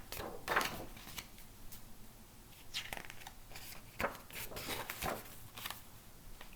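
Pages of a hardcover picture book being turned and handled: a run of short papery swishes and a few soft clicks.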